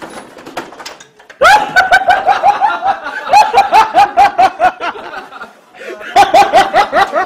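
A person laughing hard in rapid, high-pitched ha-ha bursts, about five a second, starting about a second and a half in, breaking off briefly and starting again near the end.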